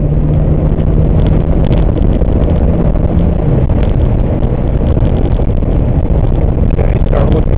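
Jeep Wagoneer driving: a loud, steady rumble of engine and road noise with a few light knocks. A steady hum stops about three and a half seconds in.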